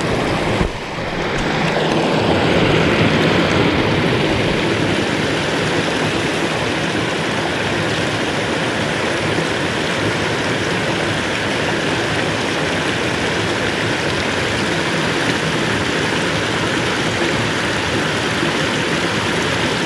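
Floodwater rushing steadily over a small dam and down a creek, a loud even rush of water.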